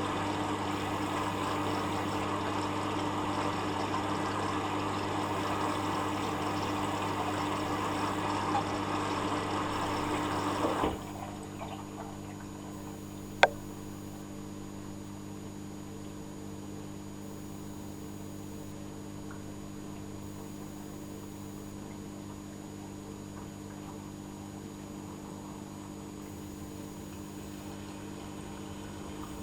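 Hoover Dynamic Next washing machine at the start of a rinse and spin cycle: water rushes through the machine for about eleven seconds over a steady low hum, then stops abruptly. A single sharp click follows a couple of seconds later, and a quieter steady machine hum continues.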